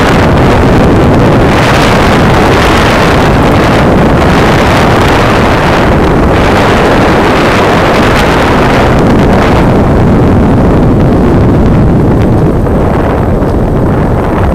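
Loud, steady wind noise over the microphone of a camera mounted on a moving road bike. It eases slightly near the end.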